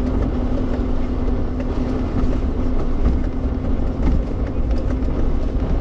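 Suzuki Jimny driving slowly off-road, heard from inside the cabin: a steady engine drone over a low rumble of tyres and suspension, with a few faint knocks.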